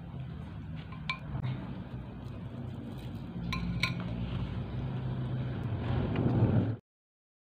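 Steady low rumble of a moving vehicle's interior, with a few light metallic clinks from a handbag's metal fittings as it is handled: one about a second in and a short cluster near the four-second mark. The sound cuts off abruptly to silence near the end.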